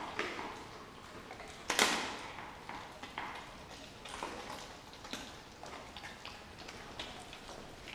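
Two dogs chewing and tearing at a whole raw turkey: irregular wet smacks, crunches and clicks, with one sharp, loud snap about two seconds in.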